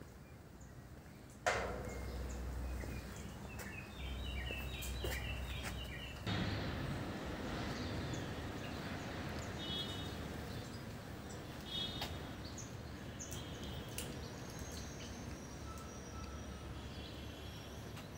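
Outdoor background noise with small birds chirping now and then, a short run of stepped chirps a few seconds in. A sudden knock comes about a second and a half in, and the background noise rises suddenly about six seconds in.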